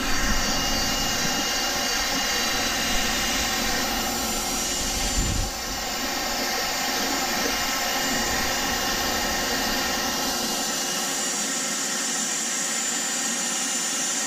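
Milwaukee cordless drill spinning an abrasive surface-conditioning disc against the metal flange of an exhaust header, cleaning the gasket mating surface. It makes a steady high whine, with a brief dip in level about five and a half seconds in.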